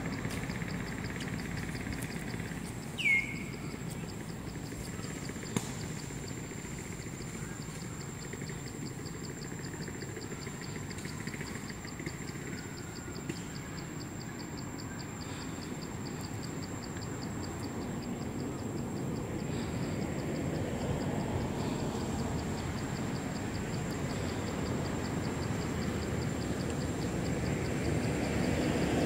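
Outdoor ambience: a steady low rumble, with a faint high whine and a fast even pulsing above it. About three seconds in, one short high squeal slides down in pitch.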